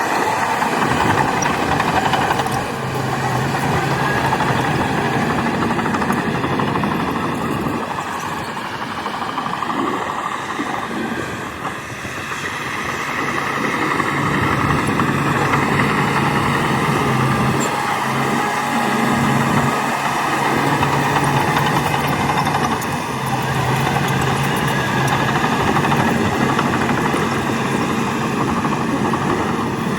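Diesel engine of a Shantui DH17 C2 crawler bulldozer running under working load, its low note strengthening and easing in stretches of a few seconds as it pushes. A steady mechanical clatter and hiss from the machine runs throughout.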